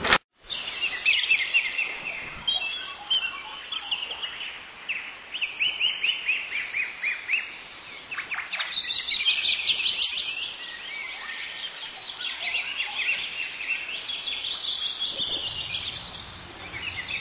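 Many small birds chirping at once, a dense chorus of short high calls that carries on throughout.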